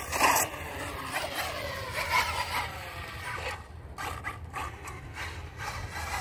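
Electric RC monster truck's motor whining as it drives over the concrete, the pitch rising and falling repeatedly with the throttle.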